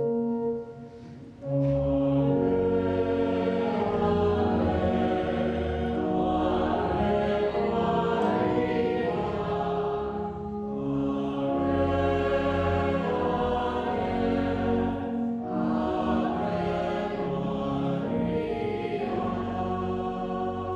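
Choir singing a slow hymn in sustained chords over a low bass line.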